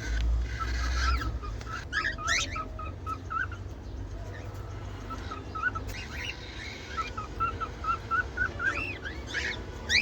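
Pet cockatiels and other small cage birds calling: strings of short, quick chirps broken by rising whistled calls, over a steady low hum.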